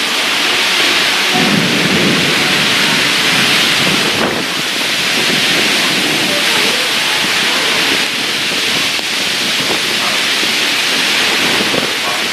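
Heavy rain falling steadily in a thunderstorm, with low rolling thunder rumbling underneath about a second and a half in and again midway.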